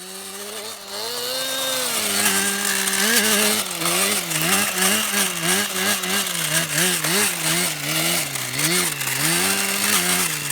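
Motor of a Blizzard 1/12-scale RC model running hard, its buzzy pitch rising and falling every half second or so as the throttle is worked on and off. It swells up over the first two seconds.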